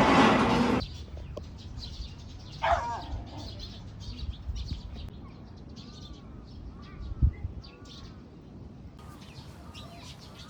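Small birds chirping, with one falling call and a run of short arched chirps repeated several times. A loud burst of noise fills the first second and cuts off abruptly, and there is a single low thump later on.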